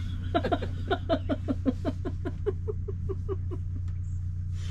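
A duck quacking in a quick run of about twenty calls that fall in pitch as the run goes on, over a steady low hum.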